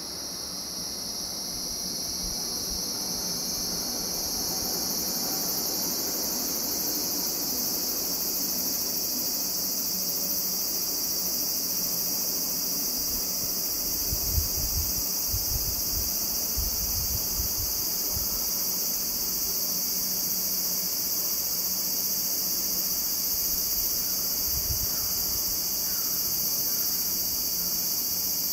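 Cicadas buzzing: a steady, continuous high-pitched drone that swells over the first few seconds and then holds. A few low bumps come around the middle.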